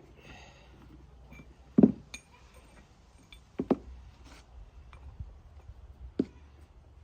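Metal tools and parts clinking and knocking together as pieces are tried for size against a ball joint: a sharp knock about two seconds in, a quick pair in the middle and another near the end, with faint small clatters between.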